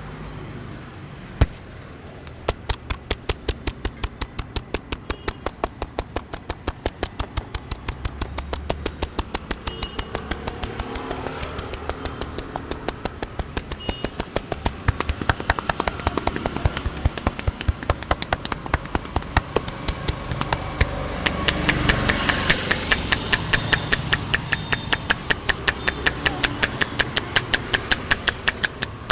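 Rapid, even hand slaps on the head during a street barber's head massage, about three a second, starting a couple of seconds in. Street traffic noise runs underneath and swells for a few seconds past the middle.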